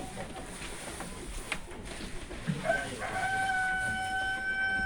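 Rooster crowing: a short rising start about two and a half seconds in, then one long steady held note that takes up the last two seconds.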